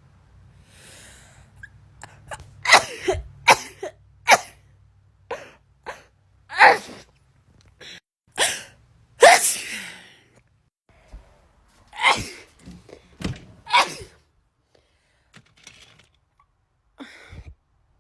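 A person sneezing over and over in an allergy attack: about a dozen sharp sneezes, some in quick runs, with short pauses between.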